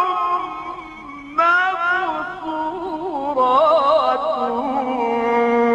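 A man chanting Qur'anic verses in melodic mujawwad style, with microphone reverb. One phrase fades out and a new one begins about a second and a half in, climbing and then wavering through quick ornaments before settling into a long held low note.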